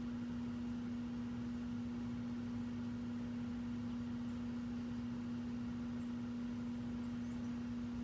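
Steady low hum: one constant low tone with a faint higher overtone, unchanging throughout.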